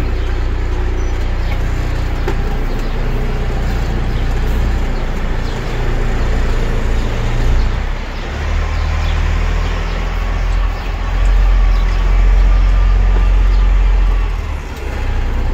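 Semi tractor's diesel engine running under load as the tractor-trailer is manoeuvred, heard from inside the cab; the engine note swells with throttle about eight seconds in and again for a few seconds near the end, with a faint whine partway through.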